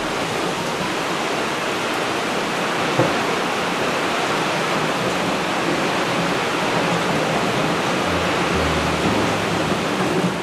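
Heavy rain falling steadily, a loud even hiss. A single light knock about three seconds in.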